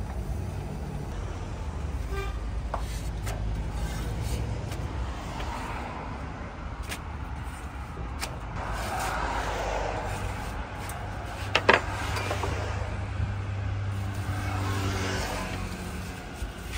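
Road traffic over a steady low rumble, with hazy swells as vehicles pass. Scattered light clicks, and one sharp knock a little past the middle.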